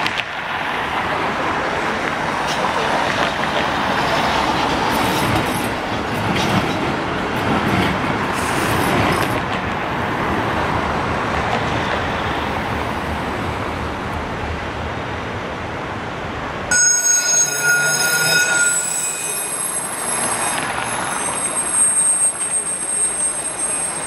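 Trams running through street traffic: a steady rumble of tram wheels on rails and road noise. About seventeen seconds in the sound changes abruptly to thinner street noise with several high, steady squealing tones, typical of tram wheels on curved track.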